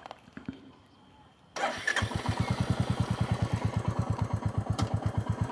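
Motorcycle engine started about a second and a half in, then idling with a rapid, even pulse.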